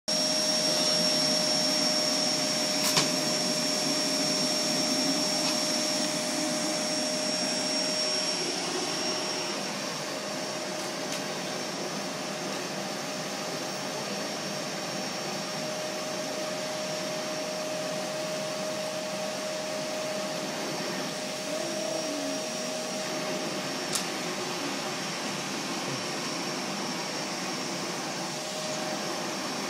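Vacuum cleaner running steadily with a constant whine, a little louder for the first eight seconds or so, then settling slightly quieter. Two sharp clicks, one about three seconds in and one near the end.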